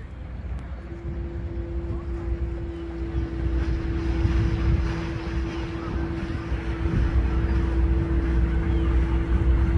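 Paddlewheel riverboat sounding its horn in one long steady blast that starts about a second in, over a low engine rumble that grows louder as the boat gets under way.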